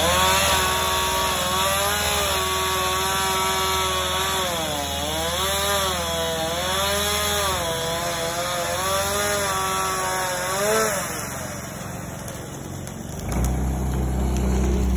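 Chainsaw cutting wood, its engine pitch dipping and recovering again and again as the chain bites into the cut, then stopping about eleven seconds in. A low rumble starts near the end.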